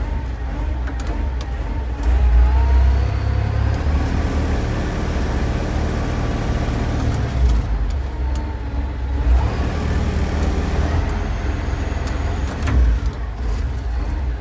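Self-loading concrete mixer's diesel engine running. It is revved up with the hand throttle about two seconds in, its pitch rising, and rises again near ten seconds.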